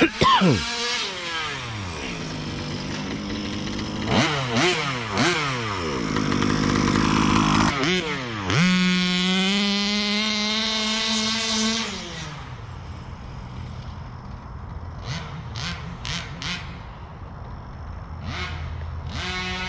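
Two-stroke gas engine of an HPI Baja 5B RC buggy revving in repeated bursts, its pitch falling off between them. About halfway in it holds a steady high pitch for a few seconds, then drops away to a quieter, lower run with a few short sharp ticks.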